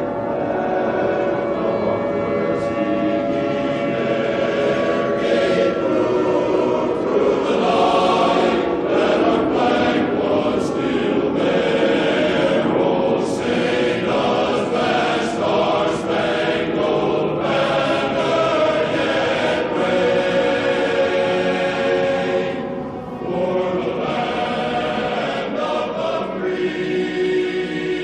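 A choir singing slow, sustained chords with musical accompaniment.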